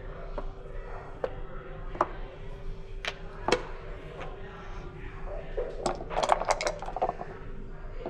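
Backgammon checkers clicking and knocking on the board as they are moved and a checker is hit onto the bar, with a quick rattle of dice being thrown and tumbling on the board near the end. A faint steady hum sits underneath.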